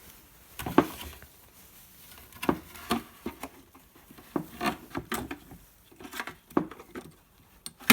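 Hand screwdriver working a screw into a block of scrap wood: a string of irregular clicks and knocks with rubbing between them. The screwdriver is a poor one that struggles to drive the screw.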